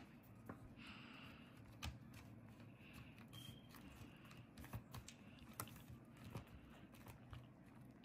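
Laptop bottom cover being set on the chassis and pressed down by hand, giving scattered light clicks and taps as it seats into place.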